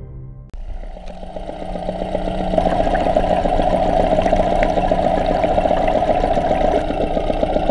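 Outboard motor running with its propeller spinning, heard underwater: a steady, fast-pulsing engine hum that starts about half a second in, grows louder over the next two seconds, then holds steady.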